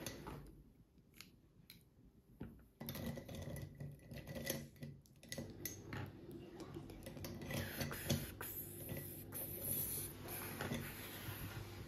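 Light clicks and clinks of felt-tip pens and other things being handled on a wooden table, starting about three seconds in after a near-quiet stretch. A hissy rustle of paper and marker rubbing on paper runs for a few seconds near the end.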